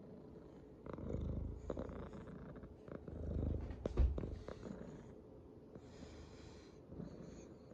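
Domestic cat purring close to the microphone, swelling louder twice as it rubs against the phone, with a sharp bump about four seconds in and soft rustles of fur on the microphone near the end.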